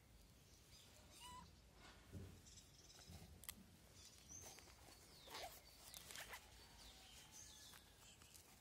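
Near silence: faint outdoor ambience with a few short, high chirps scattered through it.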